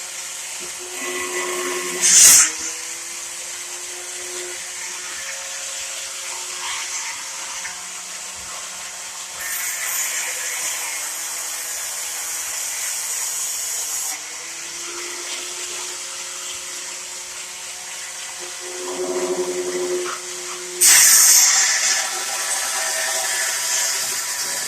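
Electric grinder running steadily with a motor whine that sags and recovers under load. There are louder, hissing stretches of grinding against the metal hurricane clips about ten to fourteen seconds in and again near the end.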